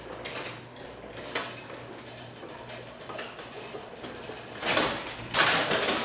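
Motorized glass-panel sectional garage door lowering, its opener running with a steady low hum and small clicks and rattles from the panels. A louder rattling noise comes near the end.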